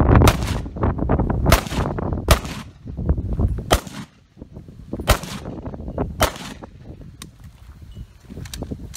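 M1 Garand rifle (.30-06) firing six shots at an uneven pace, roughly a second apart, each a sharp crack.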